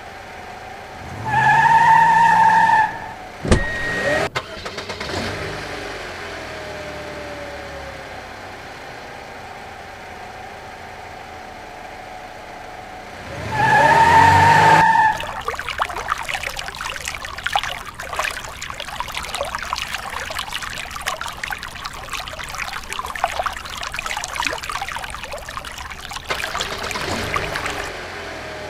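Edited-in vehicle sound effects. A short engine-start sound with a horn-like tone comes twice, about a second and a half in and again about 14 seconds in, with a sharp click and a quick upward glide between them. Then a long stretch of crackling, rattling engine-like noise runs over a steady low hum.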